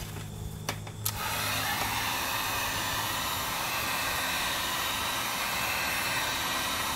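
Electric heat gun switched on about a second in, after a couple of light clicks, then running steadily, its fan blowing an even rush of hot air.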